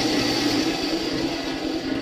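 A 10-inch benchtop bandsaw, slowed with a speed reduction kit, cutting through 1-inch thin-wall EMT steel tubing. Its steady motor hum runs under a metal-cutting hiss that fades as the blade finishes the cut.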